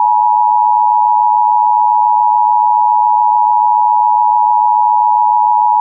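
Emergency Alert System attention signal: the loud two-tone alert tone (853 and 960 Hz), held steady and unbroken, cutting off abruptly near the end.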